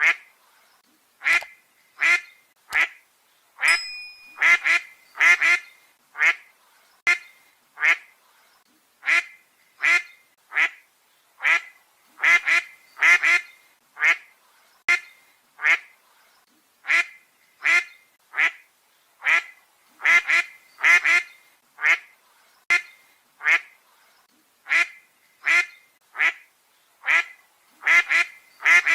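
Duck quacking over and over: short separate quacks, some single and some in quick pairs or triples, about one a second.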